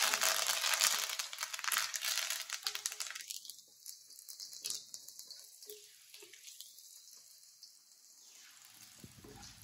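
Fresh curry leaves spluttering and crackling as they hit hot sesame oil with mustard seeds and garlic in a kadai. The crackle is loud for the first three seconds or so, then dies down to a faint sizzle.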